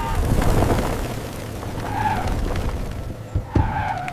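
Cartoon sound effect of a runaway cart with no brakes: a loud, continuous rumbling clatter, with a sharp knock near the end.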